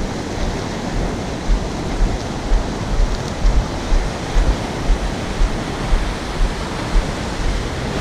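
Surf breaking and washing up a sandy beach, a steady rush of water, with wind buffeting the microphone in short low gusts about once a second.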